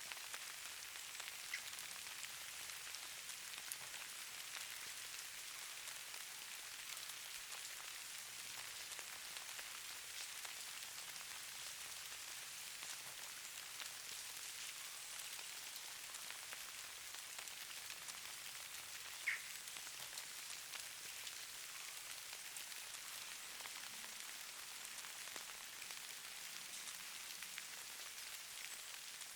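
Falling snow and ice grains pattering on surfaces: a steady, fine, high hiss dotted with tiny ticks, and one sharper tick about two-thirds of the way through.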